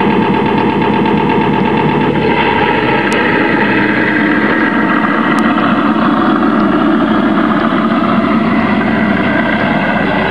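A vehicle engine running steadily at an even pace, the running sound for a tracked Bren gun carrier model on the move.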